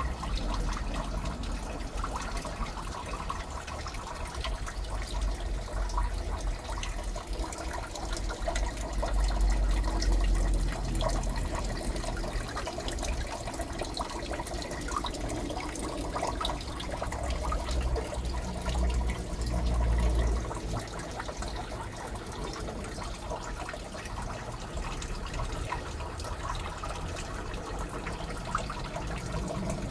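Aquarium water trickling and bubbling steadily where the surface is churned near the tank's pipe. Low rumbles come twice, about a third of the way in and again past the middle.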